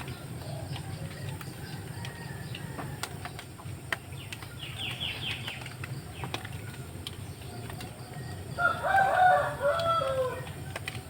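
A rooster crows once, loudly, near the end: a pitched call about two seconds long that drops in pitch as it finishes. Before it come small birds chirping, with a short fast high trill about halfway through, over a steady low rush of background noise.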